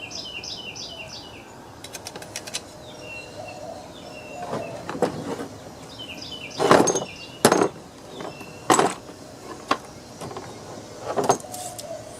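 Sharp knocks and clinks of chainsaw parts and tools being handled during reassembly, four louder ones in the second half. A songbird chirps in short repeated phrases in the background.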